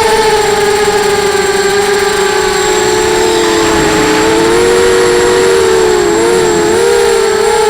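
250-size FPV racing quadcopter's brushless motors and propellers whining loudly. The pitch dips about halfway through, then wavers up and down near the end as the throttle changes.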